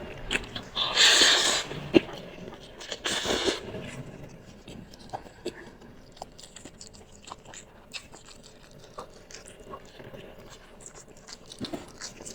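A person eating spicy instant noodles close to the microphone: two louder, hissy mouth sounds in the first few seconds, then steady chewing with many small wet clicks and smacks.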